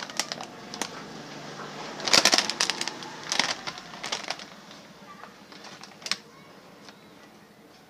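Sealed plastic potato chip packet crinkling and crackling as it is handled and turned over in the hand, in two flurries about two and three and a half seconds in, then a single crackle near the end.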